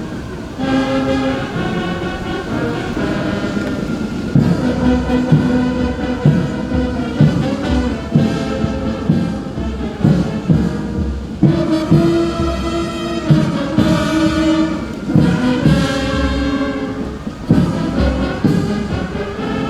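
Brass band playing a march: sustained brass notes that change every second or so over a steady drum beat of about two strokes a second.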